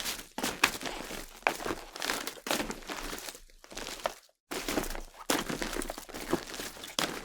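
Footsteps on a loose, crackling surface, about one step a second, each step a crackly crunch, with a brief pause about four seconds in.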